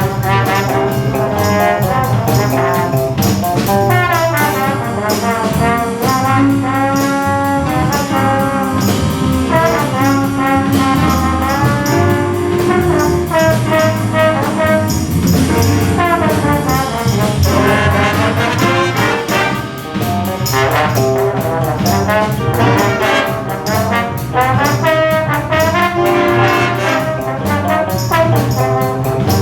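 High school jazz big band playing a funk-groove jazz chart: the brass section of trumpets and trombones plays loud ensemble horn lines and sharp rhythmic hits over a steady beat.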